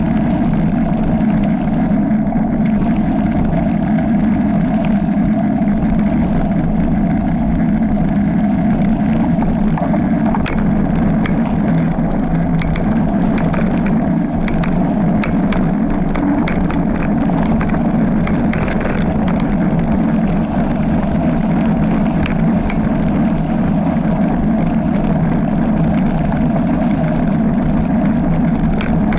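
Steady loud rumble of a rigid, unsuspended mountain bike rolling over a gravel and dirt trail, picked up by a camera riding on the bike, with many small clicks and rattles from gravel and trail bumps.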